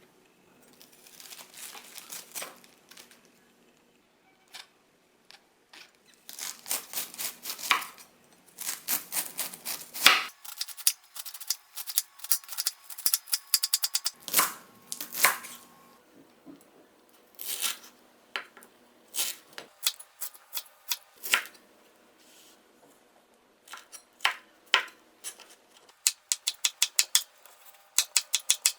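Kitchen knife slicing through crisp raw vegetables on a cutting board: sharp, crunchy strokes, often in quick even runs of several a second, with short pauses between runs.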